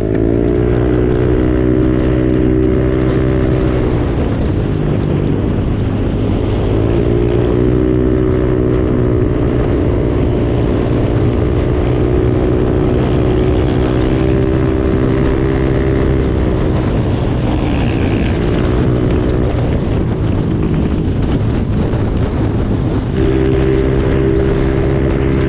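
Motorcycle engine running under way, its pitch climbing as it pulls away and then dipping and rising again a few times, with wind noise on the microphone.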